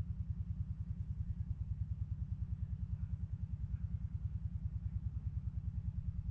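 An engine idling steadily: a low, even pulsing at about ten beats a second.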